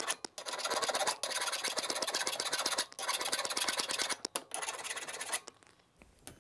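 Metal file rasping over the metal drive rod of a La-Z-Boy electric recliner mechanism, filing down burrs so the rod will slide out smoothly. It comes in runs of one to two seconds with brief pauses between them and stops about five and a half seconds in.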